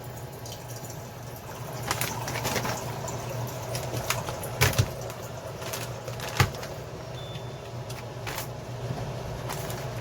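Scattered clicks and knocks of cookware and utensils being handled over a steady low hum, with two louder knocks near the middle.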